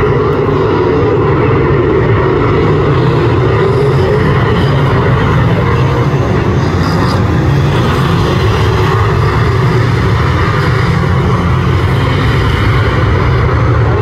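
A pack of speedway saloon cars racing on a dirt track: many engines running together at full throttle, loud and steady throughout.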